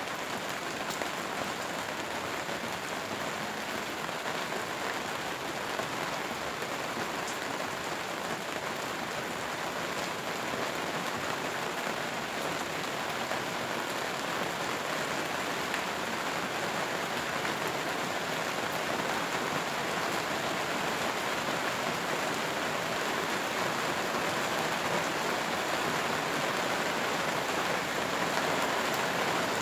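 Steady rain falling in a dense, even patter, growing gradually a little louder through the stretch.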